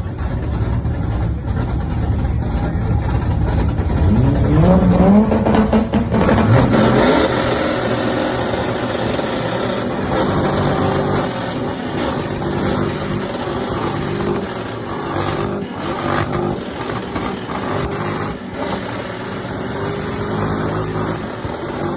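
Car engines revved hard and held on two-step launch-control rev limiters, with rapid exhaust pops and crackles. The revs climb about four to six seconds in, then hold at a steady, stuttering pitch.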